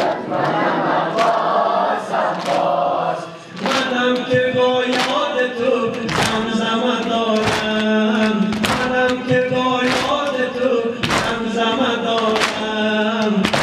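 Crowd of men chanting a Shia mourning noheh in unison, keeping time with sineh-zani chest-beating: sharp slaps land a little more than once a second. About three and a half seconds in, the looser crowd sound settles into a steady pitched chant line.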